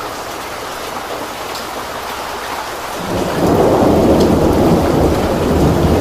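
Heavy thunderstorm rain hissing steadily, with a deep rumble of thunder building about three seconds in and holding on under the rain.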